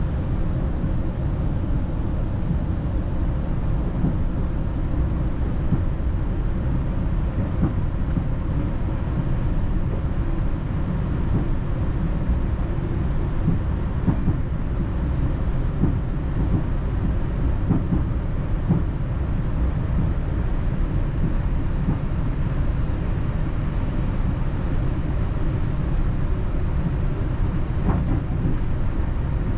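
Steady low rumble of a Northstar commuter train running, heard from inside a passenger coach, with a few faint clicks.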